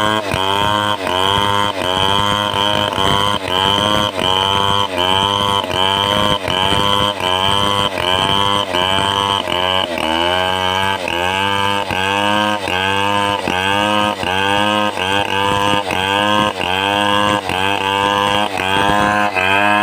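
Large Stihl 070 two-stroke chainsaw running under load while ripping timber, its engine pitch dipping and recovering in a steady rhythm about one and a half times a second.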